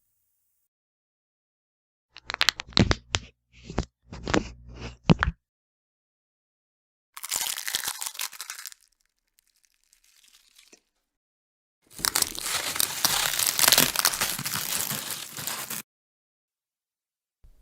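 Bone-break sound effects: a quick run of sharp cracks and snaps, then a short crunch, then a denser crunching and crackling lasting about four seconds, with silence between them.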